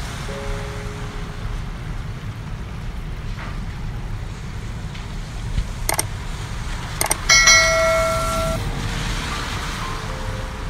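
Soft background music with sparse held notes over a steady low rumble. Two sharp clicks come around six and seven seconds in, then a bright ringing chime-like note that fades over about a second.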